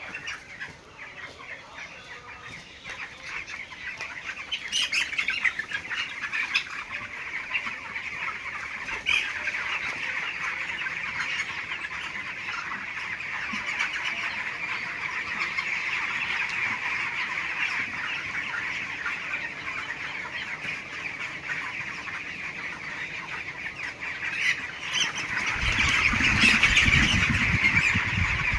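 A flock of 18-day-old poultry chickens chirping and calling together in a dense, continuous chorus that grows louder, with a low rumble joining near the end.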